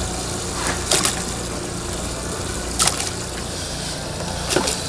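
Water running and splashing over a steady low mechanical hum, broken by three short, sharp noises about two seconds apart.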